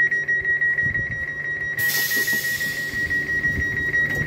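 A passenger coach's door-closing warning signal: a continuous high-pitched beep. About two seconds in, a hiss of air joins it as the door closes.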